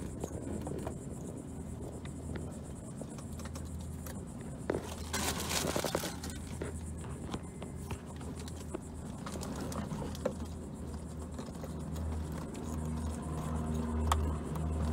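Light scraping and small clicks from hands pressing plastic mounting brackets onto a light aircraft's overhead cabin panel, with rubbing on the phone microphone and a brief rush of noise about five seconds in, over a steady low hum.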